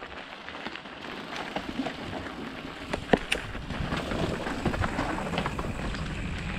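Mountain bike rolling over a rough, rocky and rooty trail: a continuous rattle of tyres and frame that grows louder, with a few sharp knocks about three seconds in.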